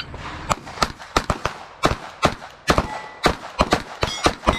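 Glock pistols firing a timed string: about a dozen sharp shots at an irregular pace of two to three a second, starting about half a second in.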